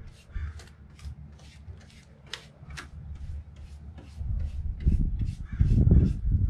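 Paintbrush stroking chalk paint onto a wooden bed post, about three quick strokes a second. A low rumble swells over the last two seconds and is the loudest sound.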